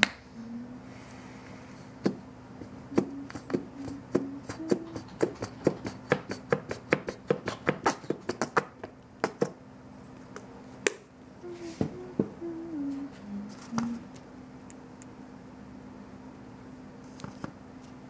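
Paintbrush dabbing on paper: a run of sharp taps that crowds to about three or four a second and then stops, with a few scattered taps later. Low hummed notes come in briefly near the start and again in the middle.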